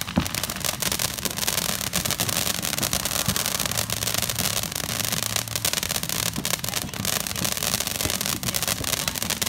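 Fountain firework spraying sparks, with a steady hiss and rapid, dense crackling throughout.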